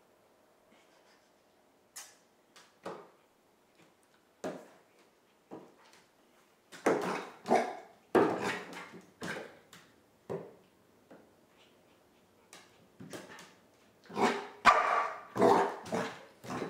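Pembroke Welsh Corgi puppy barking in play: short yaps in two flurries, about seven seconds in and again near the end, with a few quieter short sounds between.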